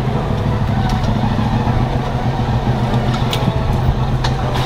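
Polaris RZR side-by-side's engine running at a steady drone while driving along a dirt trail, with a few light knocks.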